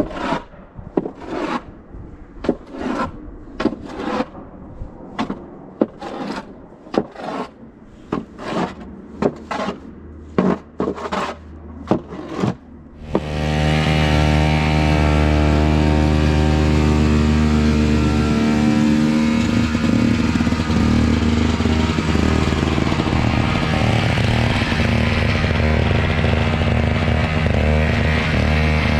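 Snow shovel scraping over pavement in quick, separate strokes, one or two a second. About halfway through, a two-stroke snowblower engine comes in and runs steadily and loudly.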